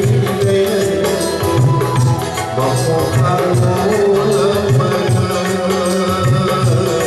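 Live Manipuri song: a man singing over tabla and electric guitar, with the tabla keeping a steady rhythm of low drum strokes.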